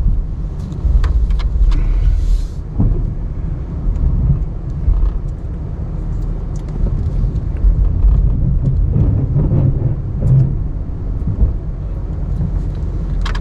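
Ram 1500 Classic pickup truck running and driving, a steady low rumble, with scattered light clicks and knocks.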